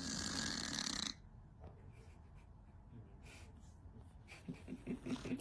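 A cat snoring: one loud snore lasting about a second at the start, then only quiet breathing and faint ticks, with a few short low sounds near the end.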